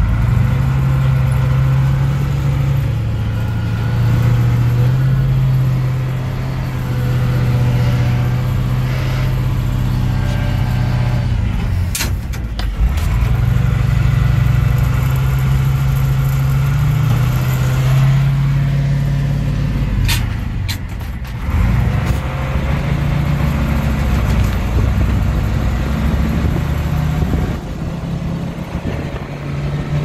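Engine of a loaded grain truck running under load, heard from inside the cab. The engine note climbs and falls, and it drops away briefly twice, once about halfway through and again about two-thirds through, as the driver changes gear.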